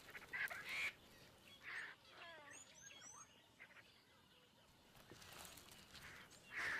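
Faint bird calls: a quick run of falling calls with small high chirps, about two to three seconds in, over a quiet background.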